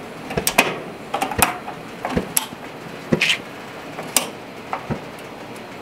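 Gas grill burner control knobs being turned off one after another. It comes as a scattered series of short clicks and knocks, some in quick pairs.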